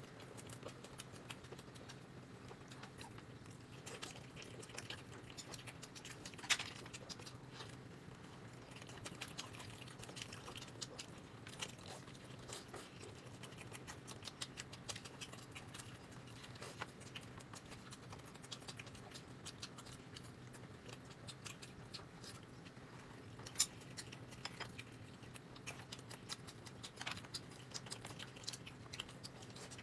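Quiet eating: chewing with frequent small clicks of utensils against dishes, over a steady low hum. Two sharper clicks stand out, about six seconds in and about 24 seconds in.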